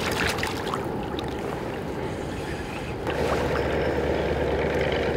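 Water splashing at the side of a boat where two hooked fish thrash at the surface, over a steady low hum that grows a little louder about three seconds in.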